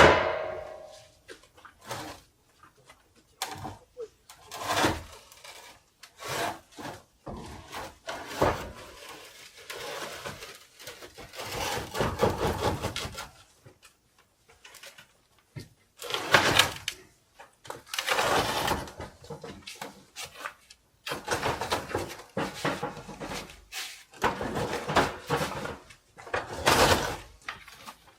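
A heavy packaged stove-fireplace on wooden boards being manhandled and lowered: irregular scraping, rustling and knocks of wood and metal. It opens with a loud, sharp knock that rings briefly.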